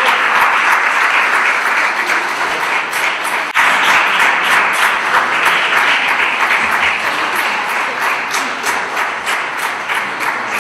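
Audience applauding: dense, steady clapping from many hands, thinning slightly near the end.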